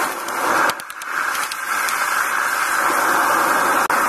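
Forge running with a steady rushing roar, with a few light metallic clicks about a second in and near the end.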